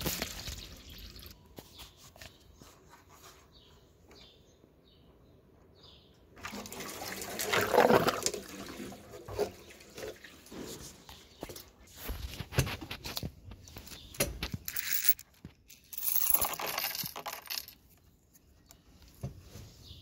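Water rushing and draining through a homemade toilet-flushing rig of plastic pipes, in uneven surges, the loudest about eight seconds in. A few knocks of the pipes being handled.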